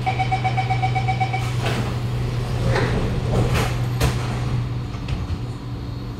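Door-closing warning on a Kawasaki Nippon Sharyo C751B train: a rapidly pulsing beep for about a second and a half, then the saloon doors slide shut with a rush of noise and a knock about four seconds in. A steady low hum from the train runs underneath.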